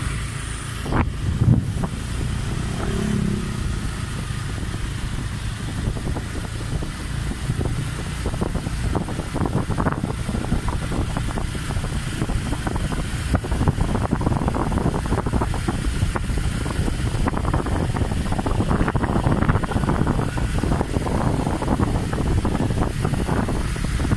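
A motor vehicle travelling on the road: steady engine and road noise mixed with wind rumbling on the microphone.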